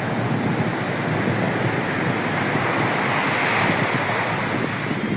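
Rough sea surf breaking on a beach, a continuous wash of waves that swells to a louder break a little past halfway. Wind buffets the microphone.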